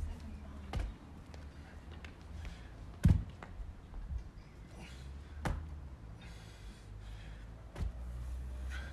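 Dumbbell thudding down onto a rubber floor mat four times, about every two and a half seconds, as it touches the floor between alternating dumbbell snatches; the second thud is the loudest. A steady low rumble runs underneath.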